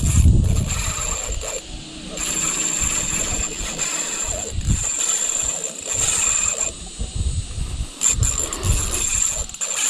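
Spinning reel on an ultralight rod working against a hooked milkfish: the drag and the reel's gears whirr and click in stop-and-start stretches of a second or two as the fish pulls line and is reeled back.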